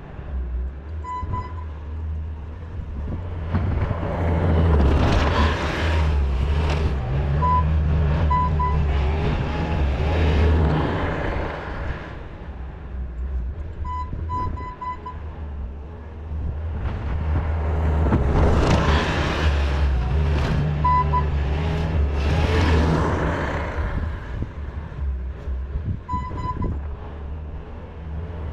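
Skid steer engine running under load, rising and falling in repeated surges as it works the snow pile, with short backup-alarm beeps a few times.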